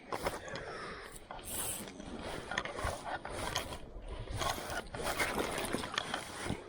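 Fly reel's ratchet-and-pawl clicking in uneven runs of quick ticks as line comes on or off the spool.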